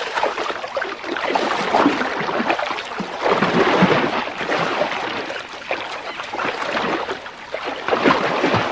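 Water splashing and churning, with many short irregular splashes, as crocodiles thrash and tear at a carcass in the shallows during a feeding frenzy.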